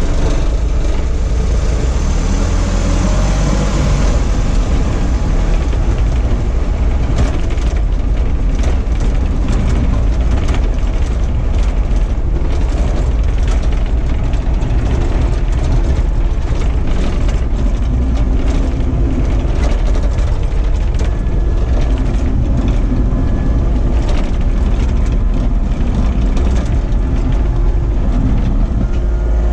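Heavy diesel engine running steadily with a low rumble, with scattered light clicks and knocks over it from several seconds in.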